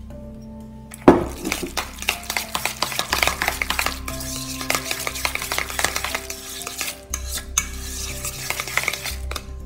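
Long metal chopsticks briskly stirring a sticky minced pork and celery filling in a stainless steel bowl: a wet, rapid churning, peppered with quick clicks and scrapes of metal on the bowl. It starts about a second in, with a brief pause about seven seconds in.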